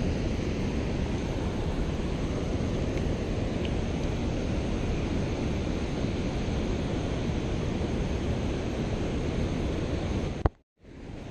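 Steady rush of wind buffeting the microphone over the sound of a swollen, fast-flowing river. Near the end a sharp click is followed by a brief dropout to silence before the rushing resumes.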